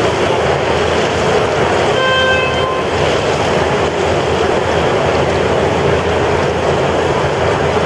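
Steady, loud rushing of air, with a short horn toot about two seconds in that lasts under a second.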